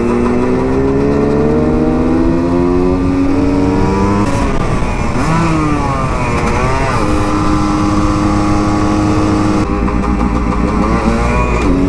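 2007 Husqvarna SM 125's single-cylinder two-stroke engine under way. The revs climb for about four seconds, drop at a gear change, dip and climb again, then hold steady.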